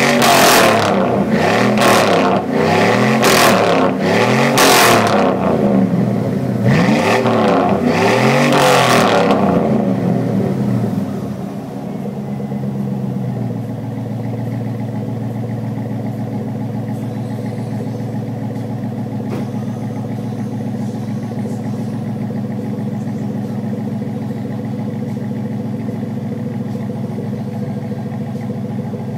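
2003 GMC Sierra 1500 exhaust through a Flowmaster Super 10 cat-back dual exhaust. The engine is blipped in a string of quick revs, about one a second, for the first ten seconds or so, then drops back to a steady idle.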